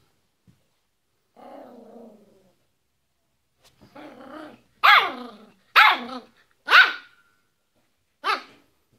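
A Yorkshire terrier growls low twice, then barks four times, sharp and loud, the last bark after a short pause.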